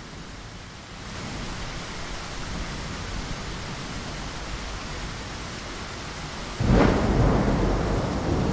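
Steady rain that gets louder about a second in, then a sudden loud clap of thunder about six and a half seconds in, its deep rumble carrying on over the rain.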